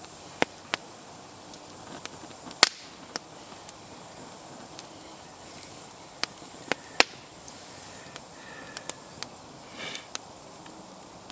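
Wood campfire crackling, with scattered sharp pops, the loudest about two and a half seconds in.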